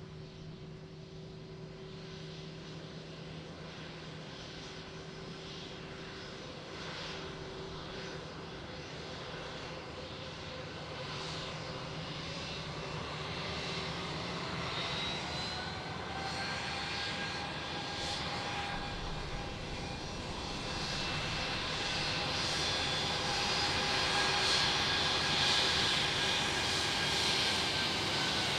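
Jet airliner's engines growing steadily louder as the plane approaches, with a high whine and tones that slowly bend in pitch.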